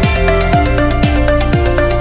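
Electronic background music with a steady beat: a deep, falling bass hit about every half second under a melody of held notes.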